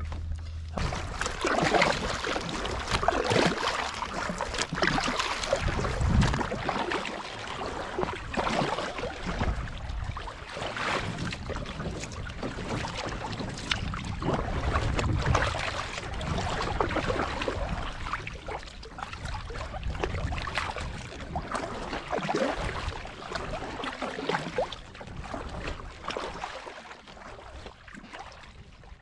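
Water sloshing and splashing against a kayak's hull, with wind gusting on the microphone.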